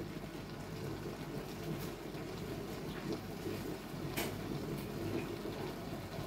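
Water boiling: a steady low bubbling, with a few faint clicks.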